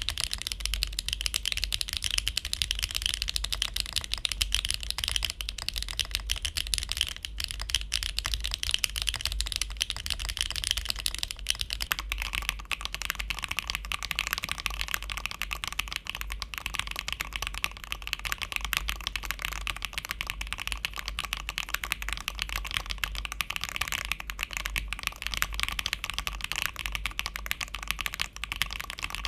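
Continuous fast typing on a mechanical keyboard, dense overlapping keystroke clicks. About twelve seconds in the tone of the typing changes, a different keyboard taking over.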